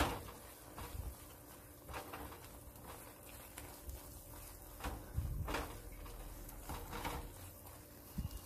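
A spatula stirring and scraping thick, sticky khoya paste around a pan, in irregular strokes every second or two with soft thuds. The paste is still a little moist and clings slightly to the pan as it cooks down.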